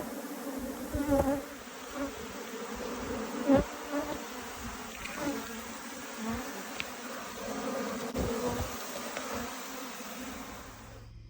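Honeybees buzzing in a dense, steady hum from a crowded open hive, with single bees passing close by in short rising-and-falling buzzes.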